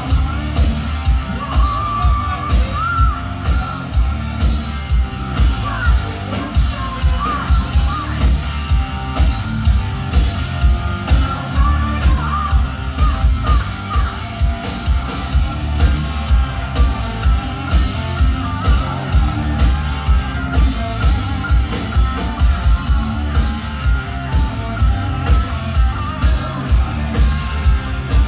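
Hard rock band playing live at full volume: drum kit keeping a steady beat under electric guitars and bass, with a singer's voice on top in stretches.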